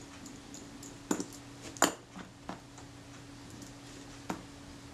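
Small metal clicks and taps of a small screwdriver working on the screws and parts of a Prontor-type leaf shutter mechanism. There are a handful of sharp clicks, the loudest about two seconds in and one more near the end, over a steady low hum.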